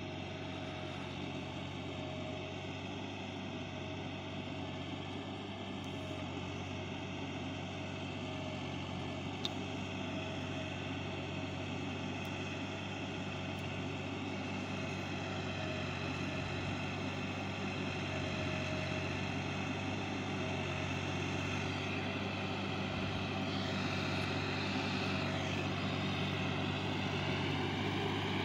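Massey Ferguson 260 tractor's three-cylinder diesel engine running steadily while hauling a heavily loaded sugarcane trolley, growing gradually louder, with one short click about nine seconds in.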